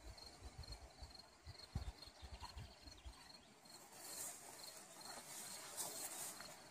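Faint insect chirping: a thin, high pitch repeating several short pulses a second. Low muffled thumps sound in the first half, and a high hiss builds from about four seconds in.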